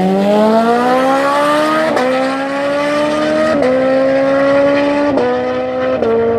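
Motorcycle engine accelerating hard through the gears toward 160 km/h. Its pitch climbs steadily in each gear and drops sharply at each of four upshifts, rising more slowly in each higher gear.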